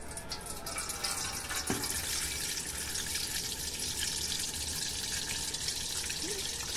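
Cold water pouring steadily from a water purifier's dispenser tap into a container, building up over the first second. There is a light knock near two seconds in.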